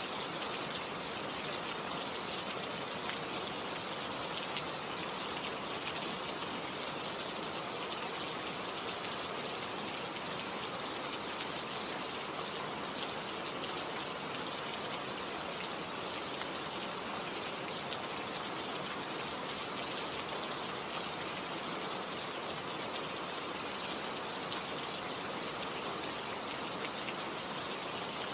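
Steady rain falling, a constant hiss of drops with many small patters on a surface.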